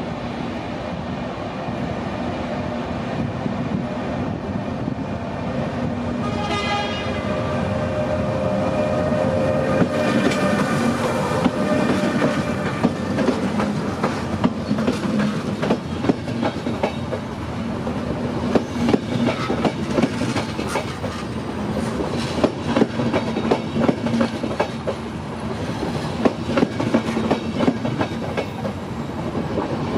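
An Intercity train headed by two Trenitalia electric locomotives approaches and passes close by, sounding its horn briefly about six seconds in. After that its wheels clatter steadily over the rail joints as the coaches roll past, over a steady low hum.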